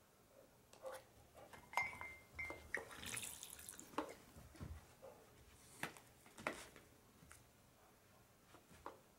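A dog's paw pressing down on a pump-action airpot: scattered clicks and knocks from the lid, and hot water spurting and splashing into a mug around three seconds in.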